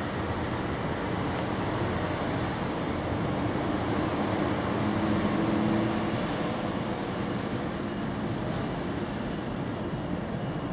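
Steady outdoor background rumble, like distant traffic, swelling a little with a low hum about halfway through.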